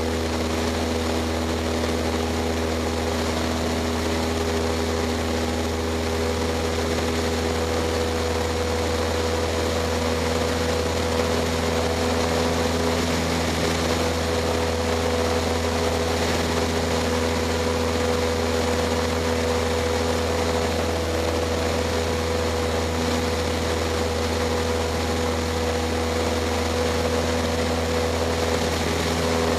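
Cessna 152's four-cylinder Lycoming engine and propeller running steadily in flight, heard from the cockpit as a constant drone with no change in pitch.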